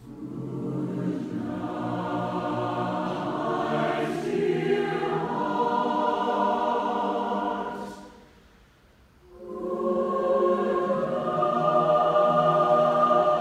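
Large mixed choir singing a slow, sustained phrase that dies away about eight seconds in; after a short breath the choir enters again on a new held chord.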